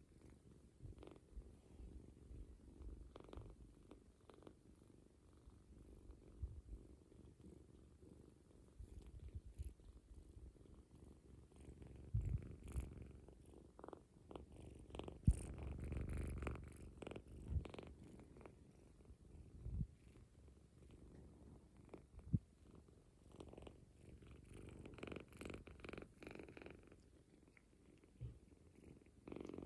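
Kitten purring close up, a low rumble throughout, with scattered soft knocks and clicks.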